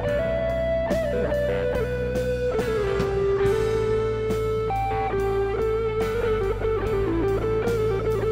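Background music: an electric guitar lead of long held notes that step and slide in pitch, over steady low bass notes.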